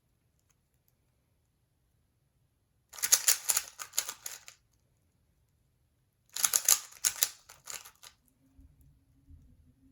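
A 3x3 Rubik's cube being turned fast in a speedsolve: two bursts of rapid plastic clicking and clacking from the layer turns, with pauses between them while the solver looks. A faint low hum starts near the end.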